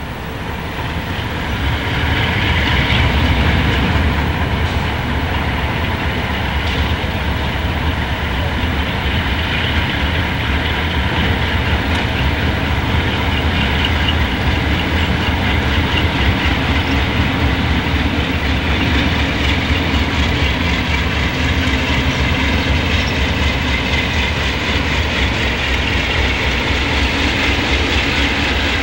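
Three Alco C628 diesel-electric locomotives, each with a 16-cylinder Alco 251 engine, pulling away under power with a train of empty ore cars. A deep, steady engine rumble swells over the first couple of seconds and then holds, with wheels clattering on the rails.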